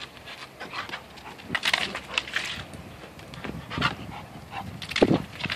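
An 11-month-old pit bull panting hard in short, irregular, noisy bursts while it grips and hangs from a rope toy, the loudest burst near the end.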